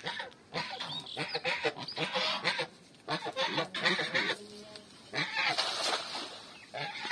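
Geese honking repeatedly in short calls, with a cast net splashing down onto the pond surface at about five and a half seconds in.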